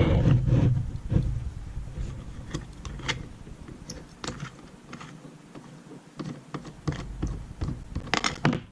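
Rock tumbler's motor running with a low hum that stops about a second in, followed by scattered light clicks and knocks as the tumbler drum is handled, with a cluster of louder knocks near the end.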